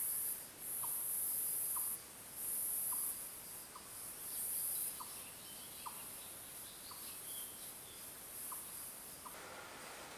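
Outdoor forest ambience. A very high-pitched insect buzz switches on and off in spells of about a second, with short soft chirps about once a second and a few faint bird calls. Near the end the buzzing stops and a soft rustling hiss comes in.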